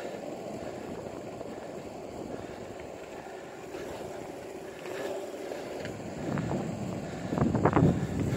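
Longboard wheels rolling on an asphalt path, a steady rumble, with wind buffeting the microphone; the wind gusts grow louder in the last couple of seconds.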